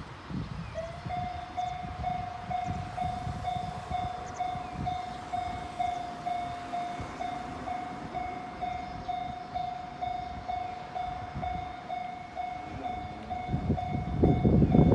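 Japanese railway level-crossing warning bell starting about a second in and ringing a steady electronic 'kan-kan' stroke about twice a second. Near the end an approaching train's low rumble swells under it.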